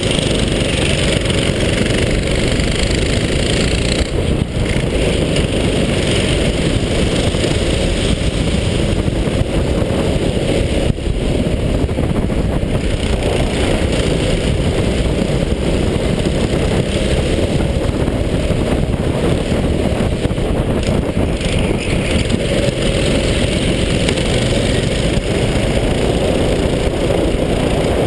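Go-kart engine running steadily as the kart laps a track, heard from a helmet-mounted camera as a loud, constant rush of low noise.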